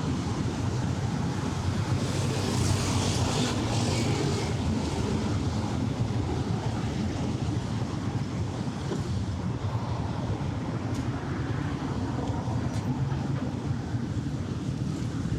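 Steady low rumble of city traffic, with a louder hiss as something passes about two to four seconds in.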